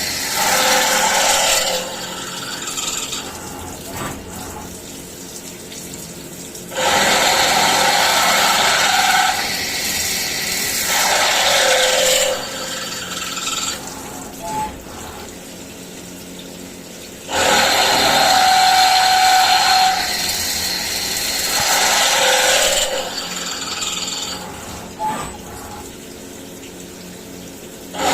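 CNC milling machine cutting, getting loud and then dropping back in a repeating cycle of about ten seconds as the tool works through its passes.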